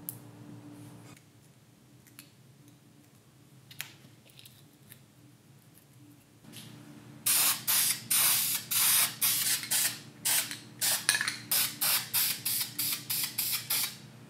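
Pressurised spray hissing in short, rapid bursts, roughly three a second, starting about seven seconds in after a few faint clicks.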